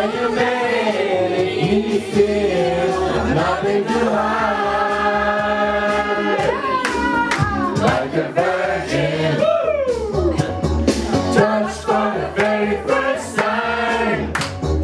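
A group of voices singing a song together, with long held notes, over a steady low musical backing.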